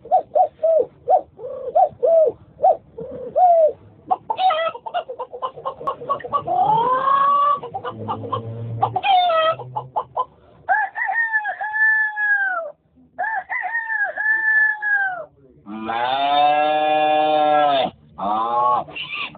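A person's voice imitating chickens: a quick run of short clucks, then a rising call, two long drawn-out calls and a long, full crowing call near the end.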